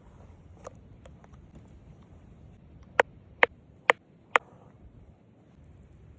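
Four sharp knocks in a steady row, a little over two a second, after a fainter click.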